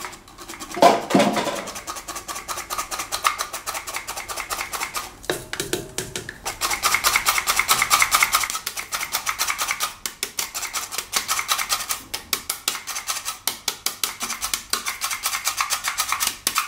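Handheld stainless steel flour sifter being worked, its wire agitator scraping across the mesh in a rapid, even run of clicks as flour falls into a steel mixer bowl. There is a louder knock about a second in.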